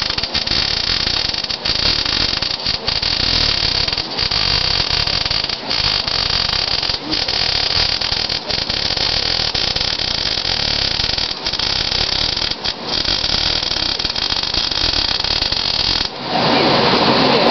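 MIG/MAG welding arc running continuously while a bead is laid in the flat position, with a few brief breaks in the sound, then stopping near the end.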